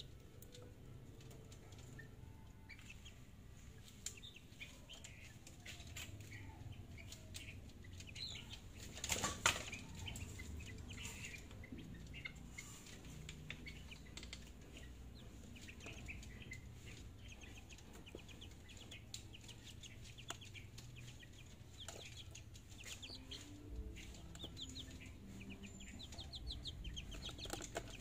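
Young chickens about a month old in a wire cage, flapping their wings and peeping. The loudest moment is a sudden burst of flapping a little after nine seconds in, and fast runs of short, high peeps come near the end.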